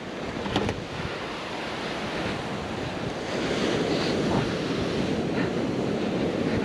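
Ocean surf breaking and washing up on a sandy beach, a steady rush that swells a little partway through, with wind buffeting the microphone. A brief knock about half a second in.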